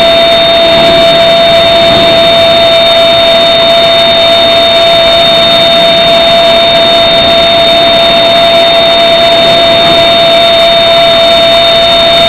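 Induction hardening machine heating a steel shaft through its coil, giving a loud, steady high-pitched electrical whine made of two constant tones, over the hiss of the quench water spraying onto the hot shaft.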